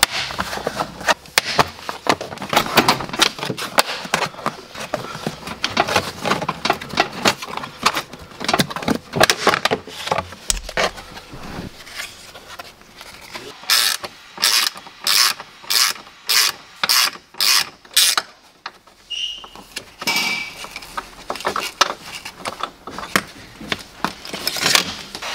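Hard plastic seat-base trim on a Ford Transit clicking and rattling as it is pried and unclipped. About halfway through comes a run of about nine even ratchet-wrench strokes, roughly two a second, as the seat is unbolted.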